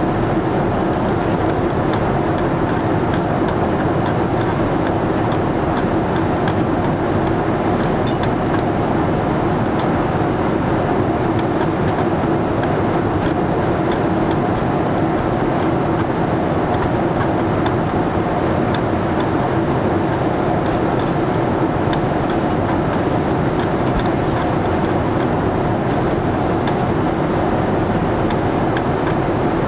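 Steady in-flight cabin noise of a Boeing 787-8, heard from inside at a window seat: the drone of its Rolls-Royce Trent 1000 turbofan mixed with the rush of airflow over the fuselage, with a steady two-note hum.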